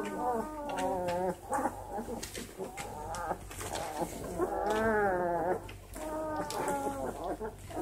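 Twelve-day-old Great Dane puppies whining and squealing: a string of wavering, pitch-bending cries, the longest near the middle of the stretch.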